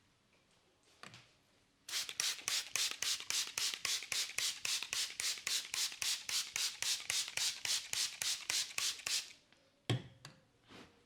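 Head massage: the masseur's hands strike the head in a fast, even rhythm, about four or five strokes a second for about seven seconds. A single sharp click with a low thump follows near the end.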